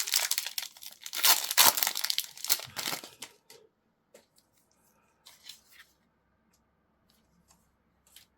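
Foil Pokémon trading-card booster pack being torn open and crinkled, dense crackling for about three seconds, then a few faint handling ticks as it is set aside.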